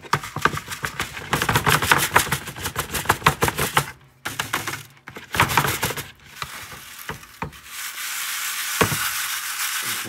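Scorched gold-plated connector pins and ash rattling in a green plastic classifier sieve shaken by hand: quick rattling strokes for about four seconds, a short burst near six seconds, then a steadier hiss of fine dust swirling in the mesh near the end.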